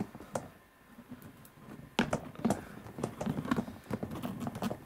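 Tight-fitting cardboard box lid being worked loose by hand: fingers tapping and scraping on the glossy card, a couple of clicks at first, then a quick run of taps and rubs from about two seconds in.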